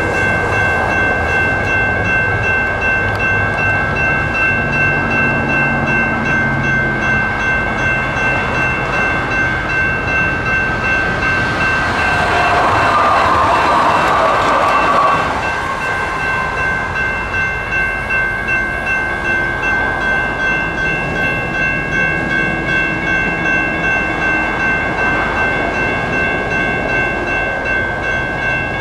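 Railroad crossing electronic bells (General Signals electronic bells) ringing steadily with a fast repeating ding. Partway through, a light rail train passes over the crossing, its noise swelling up under the bells and then falling away after a few seconds.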